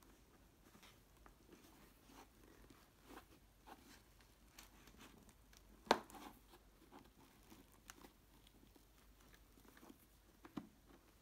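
Quiet handling noises from a motorcycle helmet: hands rubbing and pressing on the hard shell and the fabric liner, with scattered light taps and one sharper click about six seconds in.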